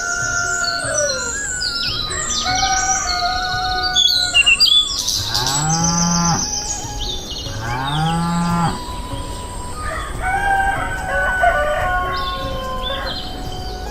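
A cow mooing twice, each moo a little over a second long, over steady chirping and tweeting of small birds.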